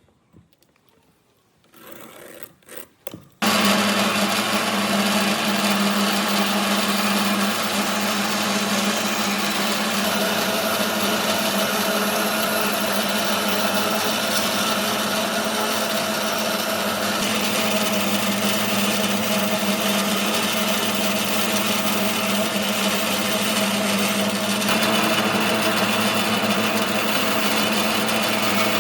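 An electric power tool working wood. It starts suddenly about three and a half seconds in, after a few faint knocks, and then runs steadily with a motor hum under a rough, gritty noise of abrasion or cutting.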